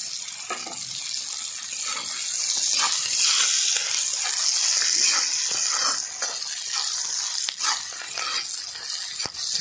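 Sliced onions sizzling in hot oil in a black iron karahi, a steady hiss, while a flat steel spatula stirs them, scraping and tapping against the pan with short clicks about once a second.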